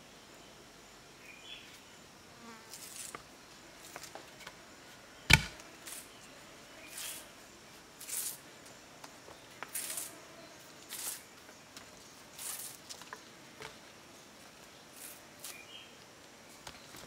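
Short, irregular rustling swishes of a jungle vine being drawn up and wrapped around a wooden pull-up crossbar, with one sharp crack about five seconds in.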